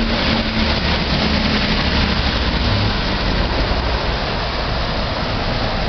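Steady hiss of heavy rain and running floodwater, with car engines running low beneath it as vehicles struggle through the flooded street.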